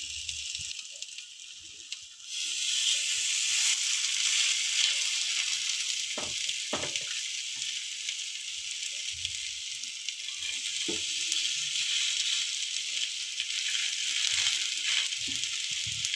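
Rava (semolina) batter-coated bread slices sizzling in ghee on a hot nonstick tawa. The sizzle jumps louder about two seconds in as another slice goes down, and there are a few light knocks as slices are placed.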